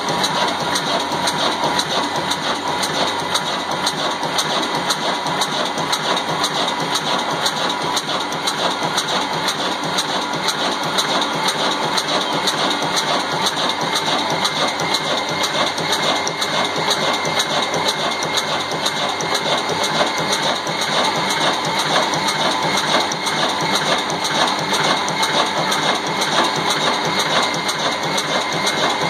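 Old stationary diesel engine of the Ruston Hornsby type, running steadily at idle with an even mechanical rhythm.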